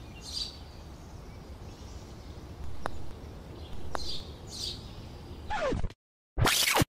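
Outdoor ambience of birds chirping over a low wind rumble, with two sharp clicks a second apart from the mini-golf putt about three seconds in. Near the end a falling whine drops into a moment of silence, then loud scratchy music starts.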